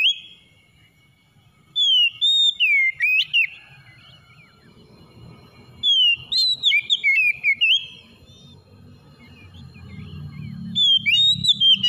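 Oriental magpie-robin (kacer) singing: three phrases of loud, varied whistled notes, each about a second and a half long, with pauses between them. A low hum rises in the background toward the end.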